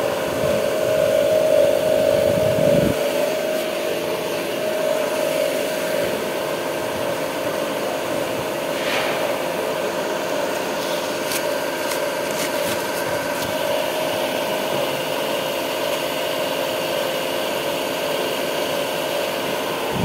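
Car air-conditioning test rig running steadily: a three-phase electric motor turns the AC compressor while the evaporator blower fan blows cold air, giving a constant machine hum with a steady tone. The low rumble drops away about three seconds in, and a few brief rubbing and clicking noises come near the middle.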